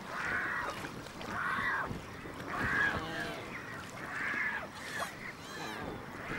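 A colony of water birds calling: four loud, goose-like honks about every second and a half over a steady chorus of other calls, with a quicker run of fainter, higher calls near the end.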